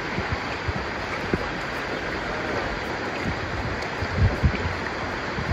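Steady rushing of a swift, flood-swollen river current. A couple of brief low thumps come about four seconds in.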